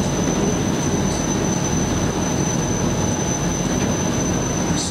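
Steady rumble of a sightseeing boat under way: engine noise mixed with the rush of wind and water, with a thin high whine running through it.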